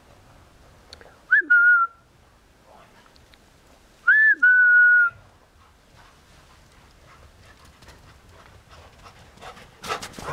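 A person whistling to call the dogs: two two-note call whistles, each a short high note stepping down to a longer held one, a few seconds apart. Near the end, a dog's paws crunching through snow as it runs up.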